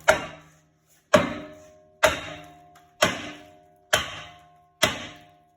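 Dead blow hammer striking the rear brake rotor of a 2015 Ford Escape to knock it loose from the hub: six loud blows about a second apart, each leaving the cast-iron rotor ringing briefly.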